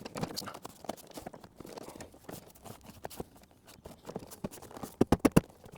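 Plastic interior door panel of a truck door being worked and slid down into place: scattered light clicks and rubbing knocks, then a quick run of about five sharp knocks near the end.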